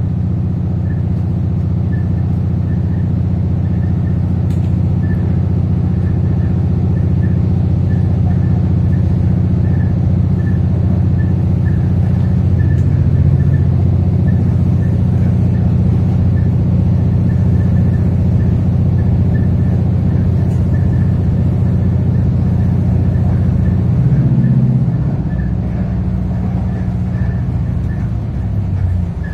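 Steady low drone of a 3000 class diesel-electric railcar under way, heard from inside: diesel engine and running gear. Near the end the drone drops back a little and changes pitch.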